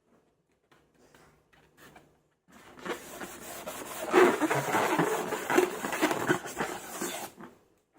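Hands squeezing and rubbing slime in a long balloon: a few faint clicks, then about five seconds of dense crackling, squishing noise made of many rapid small strokes, starting a couple of seconds in.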